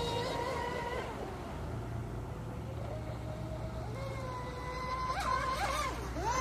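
Electric RC speedboat's motor (HobbyKing Pursuit mono hull on a 6S LiPo) whining at speed: a steady high whine that fades about a second in as the boat runs away, returns, then wavers up and down in pitch near the end with throttle and turns.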